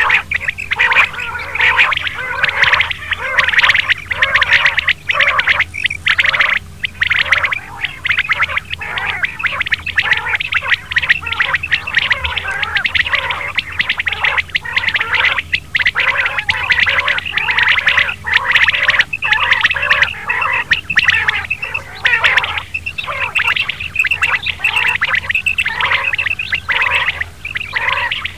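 Quail calls from a hunting lure recording: many short, repeated calls overlapping without a break, over a steady low hum.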